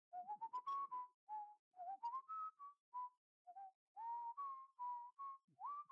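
A person whistling a faint, jaunty tune: a string of short notes, several sliding up in pitch.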